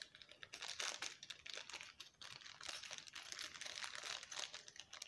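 Small clear plastic packet crinkling faintly as fingers pick at it and peel it open: a steady run of small, quick crackles.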